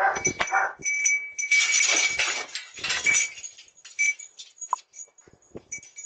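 Handling noise from a Ring video doorbell being pulled off its mount and carried: fabric rubbing and scraping right against its microphone, with scattered knocks and rattles.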